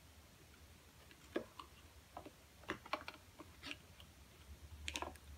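Light irregular clicks and taps of handling as a loaded plastic Stratocaster pickguard, pickups and wiring still attached, is lifted off the guitar body, with a quick cluster of clicks near the end. A faint low hum runs underneath.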